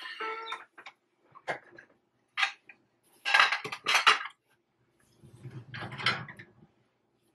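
China teacups and dishes clinking and clattering as they are handled and set down in a cardboard box, in a string of separate knocks. The loudest clatters come about three to four seconds in.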